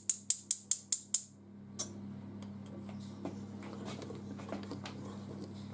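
A metal mesh sieve tapped quickly by hand, about six taps a second for just over a second, shaking flour and cocoa through into a stainless steel bowl. Then faint scrapes and small clicks of a spatula folding the mixture in the bowl, over a steady low hum.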